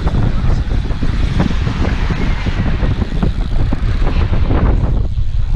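Strong wind buffeting the microphone, a loud, steady low rumble with ragged gusts, over surf breaking on the beach.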